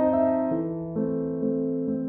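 Soft background piano music: sustained notes and chords, with a chord change about half a second in.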